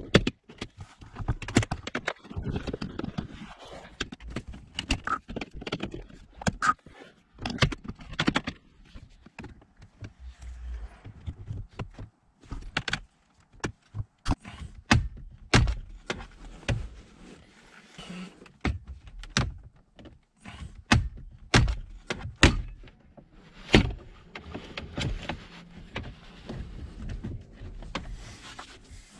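Irregular clicks, knocks and rattles of hard plastic car-interior trim being handled and worked loose around the centre console.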